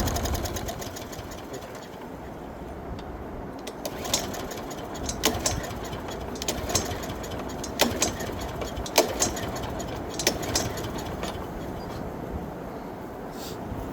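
Lawn mower engine, running only on fuel poured into its intake, dies away over the first second or so. This start-then-stall is taken as the sign of a blocked carburetor or fuel supply. After it comes a quiet stretch with scattered clicks and knocks.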